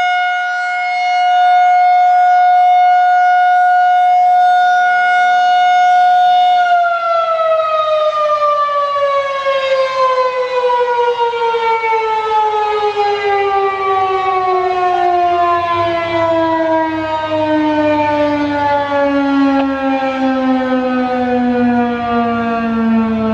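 Federal Signal 2001-SRNDC outdoor warning siren sounding its steady alert tone. About seven seconds in it begins to wind down, its pitch falling slowly and steadily for the rest of the time as the end of the alert test cycle.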